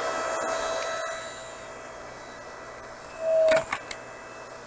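A small motor running steadily with a fixed whine. About three and a half seconds in it briefly grows louder, with a few sharp knocks.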